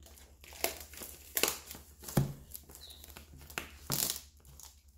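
Plastic shrink wrap on a boxed kit crinkling and tearing as hands pull at it: a run of irregular rustles with a few louder crackles, the sharpest about two seconds in.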